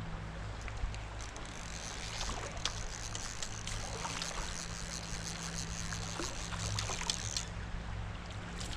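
Shallow stream water flowing and rippling around a wading angler, with scattered small splashes and ticks over a low steady hum.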